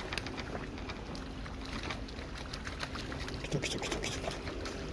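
River water flowing over a shallow stony bed, a steady wash with low rumble and a faint steady hum, and a few small clicks and knocks about three and a half to four seconds in.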